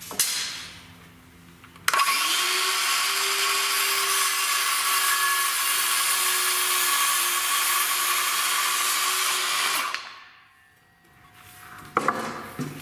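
Circular saw spinning up about two seconds in, running steadily for about eight seconds while cross-cutting a 2x2 board to length, then winding down. A sharp knock near the end.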